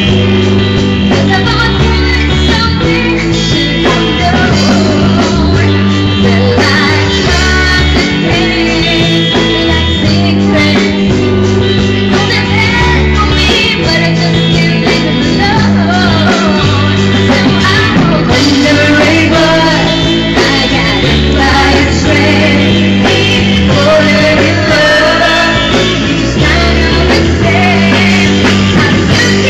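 Live rock band playing a song, with guitar, a bass line moving in steps underneath, and singers on a microphone.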